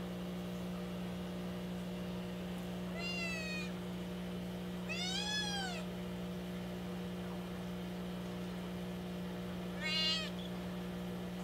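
Young black kitten, about two months old, meowing three times: two drawn-out calls that rise and fall, then a shorter, louder one near the end. It is the constant calling of a newly taken-in stray kitten, which the owner puts down to the unfamiliar place or to looking for its mother.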